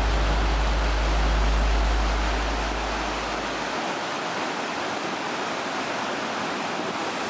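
River rapids pouring over rock ledges: a steady rush of white water. A deep low rumble under it fades out about halfway through.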